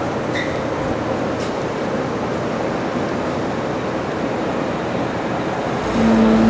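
Steady street traffic on wet roads: a constant hiss of tyres and engines. Near the end a louder, low engine hum comes in.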